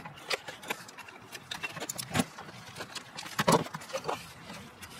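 Spring clamp and rubber upper radiator hose being worked off the radiator's hose neck: scattered, irregular clicks and knocks, the loudest about three and a half seconds in.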